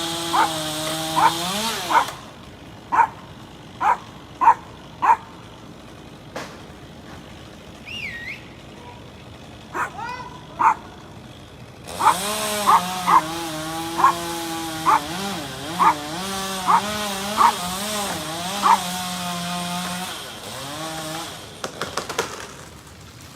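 Chainsaw running at high throttle in two spells, the second revving up about twelve seconds in, bogging briefly, and cutting off near the end. Short sharp sounds about once or twice a second stand out above it, continuing through the gap between the two spells.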